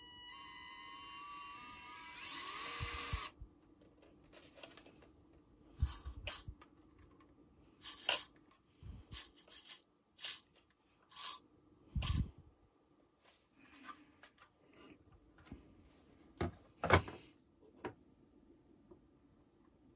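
Electric motor and gears of an RC4WD 1/24 Trail Finder 2 mini crawler whining with its wheels spinning free in the air, the pitch rising sharply before it stops about three seconds in. Then a series of sharp plastic clicks and knocks as the little truck is turned over in the hand and set down on the bench.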